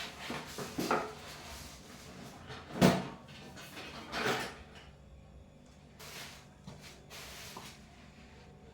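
Knocks and clatter of a new bread bin and its storage containers being handled and unpacked, with one sharper knock about three seconds in and a rustle later.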